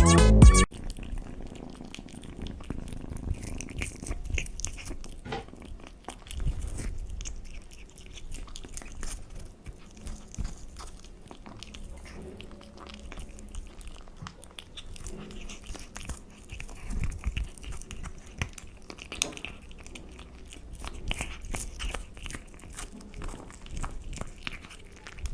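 A pet chewing and crunching food, with irregular sharp crunches. Loud electronic music cuts off less than a second in.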